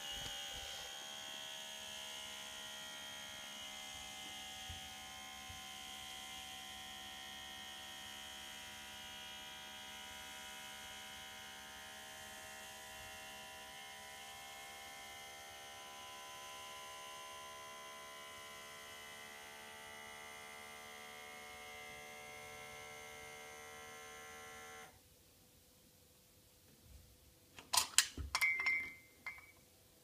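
Steady electrical hum from the espresso machine, a buzz with many steady tones, that cuts off abruptly about 25 seconds in. Near the end come a few sharp metallic knocks and a brief squeak as the lever is handled.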